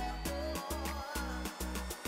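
Background music with a steady beat and a repeating bass line under a wavering melody.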